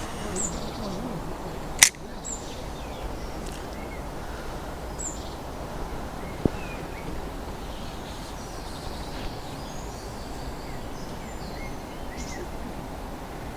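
Small birds chirping now and then over a steady low outdoor rumble, with one sharp click about two seconds in and a fainter tick a few seconds later.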